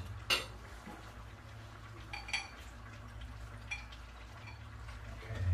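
Soju poured from a glass bottle into a drinking glass, with a few light clinks of glass on glass, the clearest about two seconds in. A low steady hum runs underneath.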